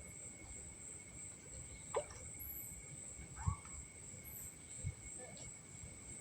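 Night insect chorus: a steady high shrill at two pitches. A few faint brief calls and soft knocks are scattered through it.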